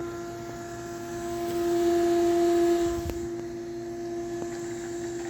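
Small submersible sump pump running, a steady electric motor hum as it draws antifreeze out of the jug into the pressure washer's line. The hum swells louder for a couple of seconds and a single knock comes about three seconds in.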